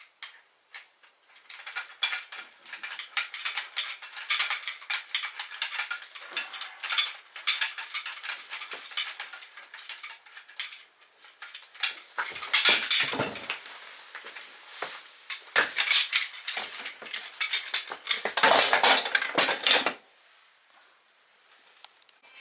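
Kermit camp chair being assembled by hand: metal fittings clinking and rattling, wooden parts knocking and scraping, in a dense run of quick clicks that stops near the end.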